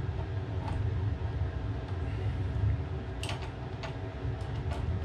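A few light clicks and taps of metal parts being handled and fitted onto an air rifle, the loudest about three seconds in, over a steady low hum.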